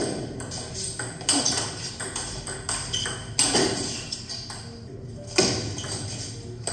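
Table tennis rally: a plastic ball being struck by bats and bouncing on the table, a series of sharp ping-like ticks, with the louder hits a second or two apart and lighter ticks between.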